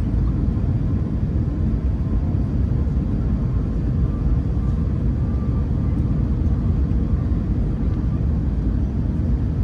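Steady low rumble inside the cabin of an Airbus A321-231 on final approach, from its IAE V2500 turbofan engines and the airflow, with a faint steady hum over it.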